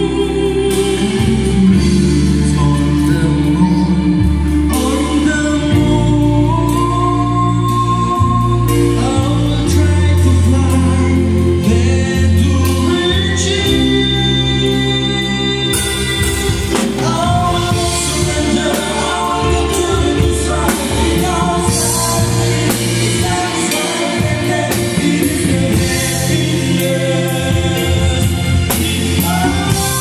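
Live band and several singers performing a song at a sound check: voices singing the melody over keyboard, bass and drums. The sound gets brighter and fuller about halfway through.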